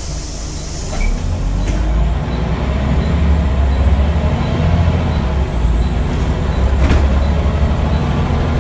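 Scania L94UB bus heard from inside the saloon: a hiss of released air in the first two seconds, then the diesel engine pulling away and growing louder. A single knock about seven seconds in.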